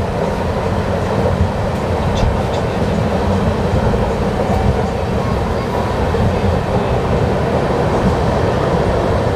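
Humsafar express passenger train running steadily, heard from on board: the coach's wheels make a continuous, even rumble on the track.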